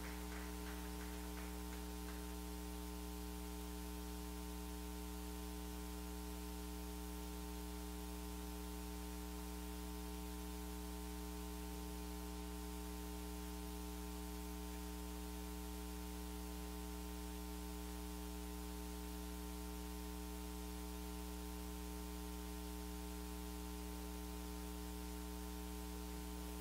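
Steady electrical mains hum, a low buzz with many even overtones, unchanging throughout.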